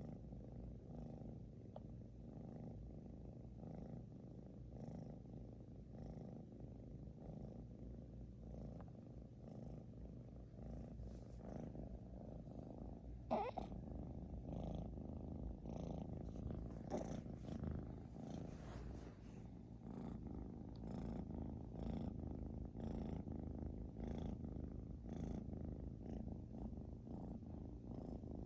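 British Shorthair cat's low rhythmic rumble, swelling with each breath about once a second, the loud snore-like purr of a resting cat. About halfway through a brief sharp rising squeak with a click stands out.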